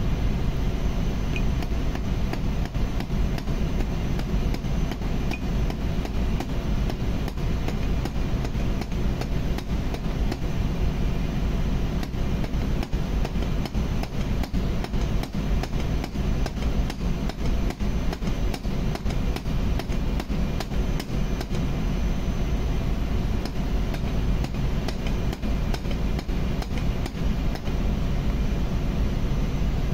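Steady drone of engine-room machinery, with rapid, irregular metal knocks and taps running through it from work on a vacuum-pump part clamped in a vise.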